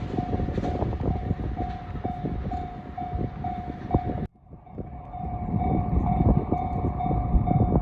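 Level-crossing alarm ringing about twice a second over the rumble and wheel clatter of a 521-series electric train. The sound cuts off abruptly about four seconds in, then the alarm starts again while train noise builds as another train approaches.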